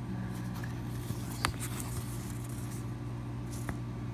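Handling of a CD album package and its paper inserts: light rustling with two sharp clicks, about a second and a half in and near the end, over a steady low hum.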